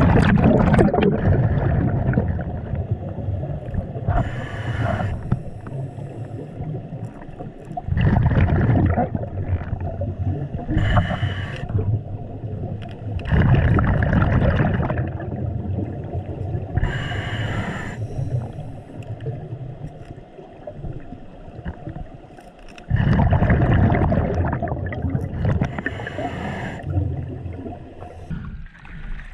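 Scuba diver breathing underwater through a regulator: loud rumbling, gurgling bursts of exhaled bubbles every several seconds, with short hisses between them.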